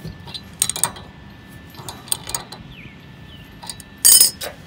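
A wrench working the adjustment screw on a Husky round-bar weight-distributing hitch, turning it in to tilt the head and lift the spring bars: sharp metal clicks and clinks come in small clusters. About four seconds in there is a louder metallic clatter.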